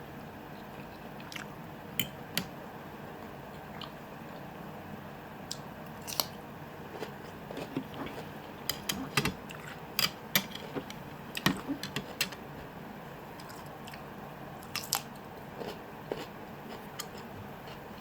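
Close-miked eating: chewing and biting food, with many short, sharp wet clicks and smacks, thickest in the middle.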